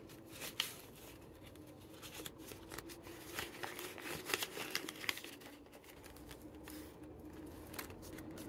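Crinkling and rustling of a clear vinyl binder pocket and paper dollar bills being handled, in scattered short bursts of rustles and clicks.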